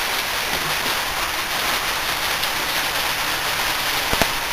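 A steady, even hiss with no rhythm, with two faint ticks near the end.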